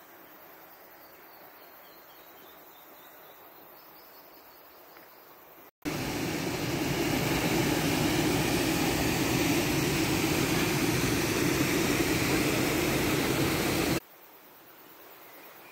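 Waterfall's steady rushing roar as it pours into its pool. It cuts in suddenly about six seconds in and cuts off just as suddenly near the end, with only faint forest background on either side.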